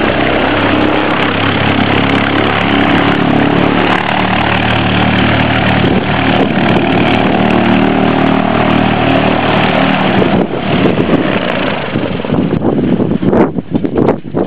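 Single-engine Cessna light plane's piston engine and propeller running steadily close by as it taxis, a loud drone with a steady engine hum. About ten seconds in, as the plane moves off, the sound turns choppy and uneven.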